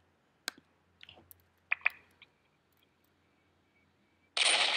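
A few sharp mouse clicks, then about four seconds in a single loud pistol gunshot sound effect whose tail fades away over more than a second.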